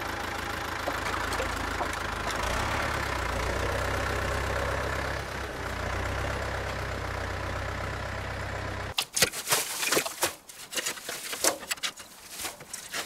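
Ford farm tractor's diesel engine running steadily, its low hum growing louder about two seconds in. About nine seconds in it gives way to a run of irregular scrapes and knocks of a shovel digging into wood chips.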